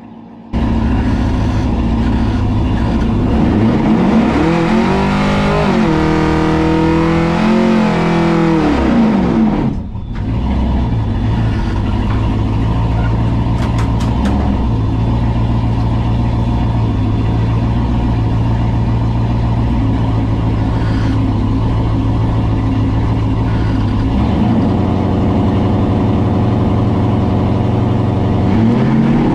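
Fox-body Mustang drag car's engine heard from inside the stripped cabin: it is revved up and down repeatedly for several seconds, drops back sharply, then runs at a steady fast idle that steps up a little about three-quarters of the way through and starts rising again at the very end.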